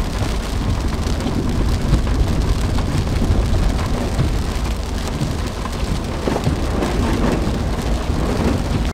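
Rain pattering on a truck's windshield and roof, heard from inside the cab, over the low rumble of the truck driving on a wet, muddy dirt road.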